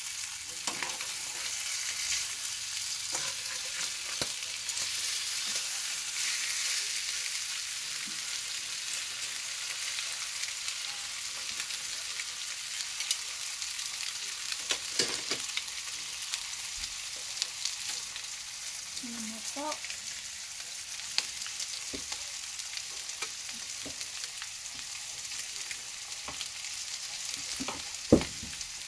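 Fish fillets frying in oil in a nonstick skillet: a steady sizzling hiss with scattered pops and clicks, and one sharp knock near the end.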